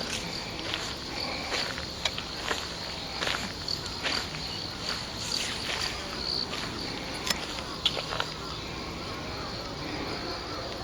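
Crickets chirping steadily in a high-pitched, evenly repeating chorus. Scattered sharp clicks sound over it, the loudest two about seven and eight seconds in.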